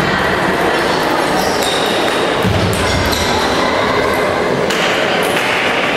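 Table tennis rally: the celluloid ball is struck by the bats and bounces on the table in sharp pings and clicks, over a steady noisy hall background.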